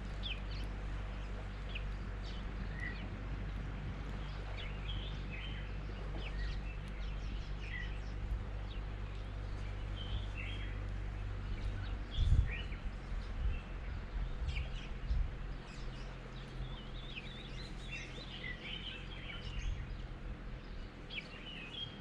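Small birds chirping and calling over a steady low hum, with a single loud knock about halfway through.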